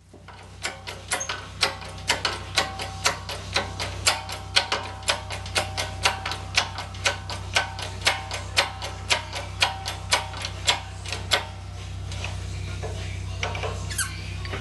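Even metallic ticking, about two clicks a second, from a hand-turned steel crankshaft in its balancing setup, over a steady low hum. The clicks stop a few seconds before the end, leaving only the hum and a faint steady noise.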